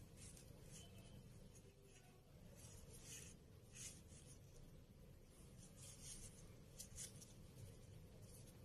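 Near silence with faint, soft rustles of a crochet hook and cord yarn rubbing as slip stitches are worked, a few short scrapes every second or so.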